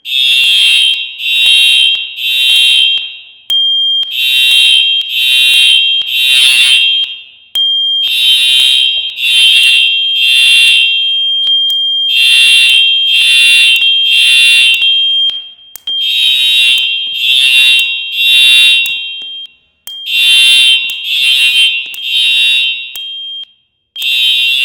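Fire alarm sounding the three-pulse temporal evacuation signal: three shrill beeps, a pause, then three again, about every four seconds, with a thin steady high tone continuing underneath.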